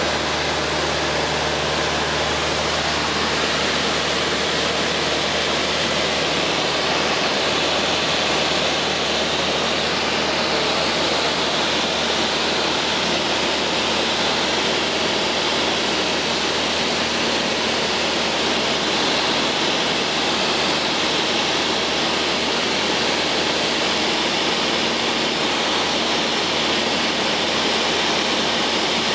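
Cabin noise of a Cessna 152 in flight: its four-cylinder Lycoming engine, propeller and rushing airflow make a steady, even drone with no change in pitch.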